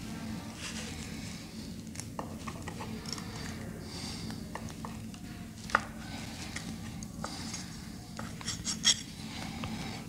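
Small metallic clicks, ticks and rubbing as stranded copper wire ends are wound around a steel screwdriver shaft to form terminal rings. The sharpest clicks come a little past halfway and in a quick cluster near the end, over a low steady hum.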